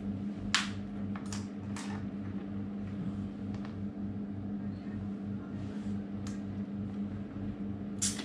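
Scattered sharp plastic clicks and handling noise from a motorcycle helmet and the clip-on mount being fitted and adjusted on it. The clicks come at about half a second, near two seconds and near the end, over a steady low hum.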